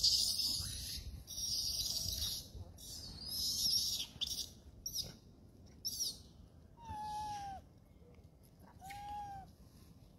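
Young macaque calling: a run of high, squeaky cries over the first few seconds, then two clear, tonal coo calls about two seconds apart near the end.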